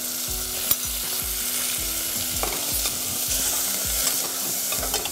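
Ghee sizzling in a stainless steel saucepan as cashew-almond paste and tender coconut pulp are stirred together with a steel spoon, the paste roasting in the hot ghee. A steady frying hiss, with a few light taps and scrapes of the spoon against the pan.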